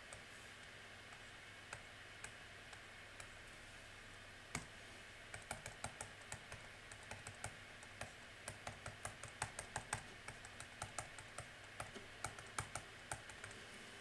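Stylus tapping on a tablet screen: short, sharp taps, a few scattered ones at first, then from about four and a half seconds in a quick run of several a second as dots are stippled into a drawing. A faint steady hum lies underneath.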